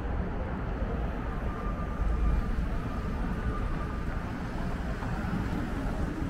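Downtown street traffic: a steady low rumble of passing vehicles, getting a little louder about two seconds in.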